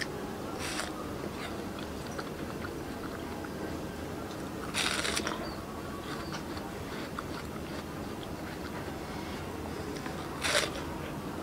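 Crunchy bites into a fresh watermelon slice: three bites about five seconds apart, the later two the loudest, with faint chewing between.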